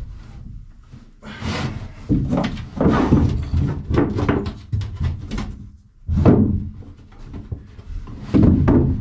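A wooden bunk frame being handled and fitted against plywood walls and floor in a small enclosed room: a series of knocks and thunks with wood scraping and rubbing between them.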